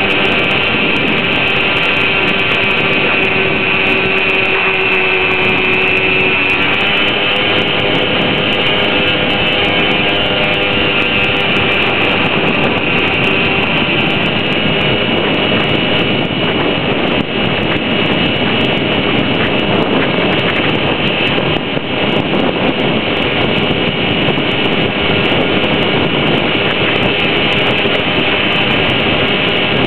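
Traxxas Villain radio-controlled boat's motor running at speed, heard from on board: a steady loud whine made of several held tones that shift in pitch a little a few seconds in, over the rush of water against the hull.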